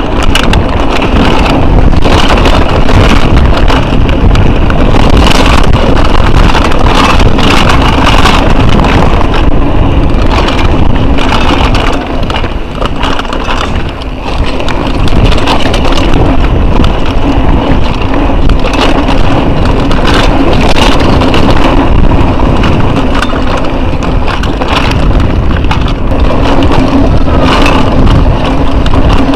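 Mountain bike riding fast down a rocky trail, recorded by an action camera on the bike or rider: continuous clattering and rattling of the bike over rough ground, with wind noise on the microphone. It eases briefly about twelve seconds in.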